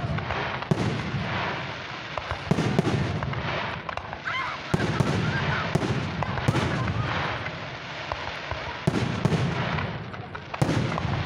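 Fireworks display: a dozen or so sharp bangs of shells and mines going off at uneven intervals, over a continuous hiss from rising comets and bursting stars.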